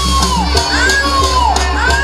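Jaranan folk music played over loudspeakers, mixed with the noise of a large crowd shouting and cheering. Under it runs a steady low hum, and a high tone slides down in pitch over and over, about every half second.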